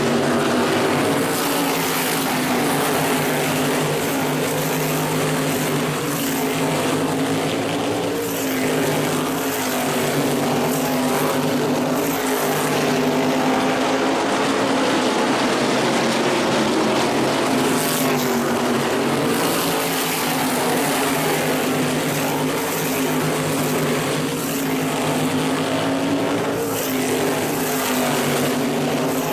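A pack of modified race cars' V8 engines running at speed on the track, a steady dense engine drone whose pitch wavers slightly up and down as the cars go around.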